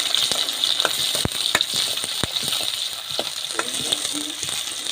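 Food frying in a pan with a steady sizzle, stirred with a spatula that clicks sharply against the pan several times.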